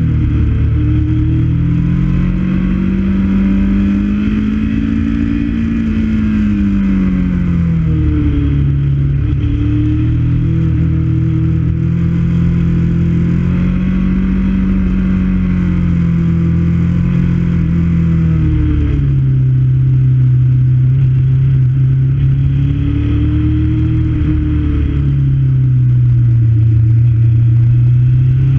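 Motorcycle engine running while riding a winding road, its pitch rising and falling again and again as the throttle opens and closes through the bends, over a steady rush of wind noise.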